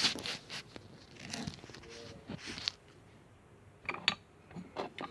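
Faint handling noises of small plastic toy figures being moved about: scattered light clicks and taps with soft rustling.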